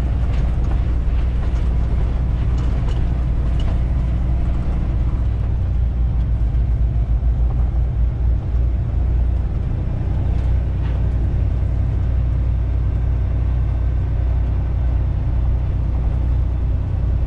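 Semi truck's diesel engine running steadily at low speed, heard from inside the cab, with scattered knocks and rattles as the rig rolls over a potholed road.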